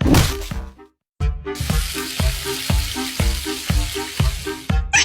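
Background music with a steady beat, a brief drop-out about a second in, and a loud sizzling hiss laid over it from about a second and a half in until just before the end, where it cuts off.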